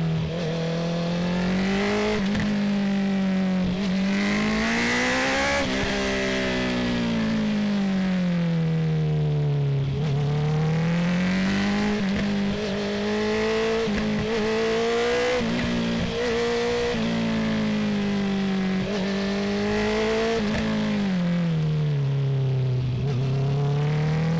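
2019 Honda CB650R's inline-four engine through an Akrapovic full titanium exhaust, heard from the rider's seat. The revs climb and fall again and again as the bike is ridden through gears and curves, with short breaks in the note at several points.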